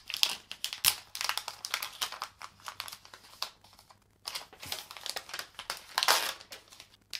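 Thin clear plastic protective film being peeled off the back of a smartphone, crinkling and crackling irregularly, with a short pause just before four seconds in.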